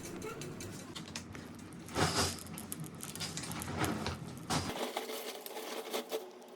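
Small pieces of laser-loosened iPhone back glass being chipped and scraped off with a hand tool: irregular light clicks and crackles, with a louder scrape about two seconds in.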